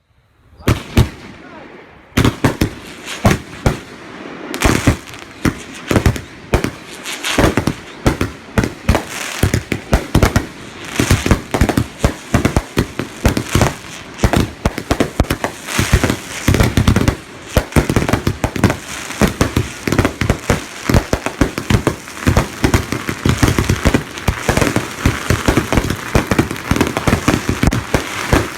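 Consumer fireworks going off: a rapid, unbroken string of sharp bangs and crackling, starting about half a second in and growing denser.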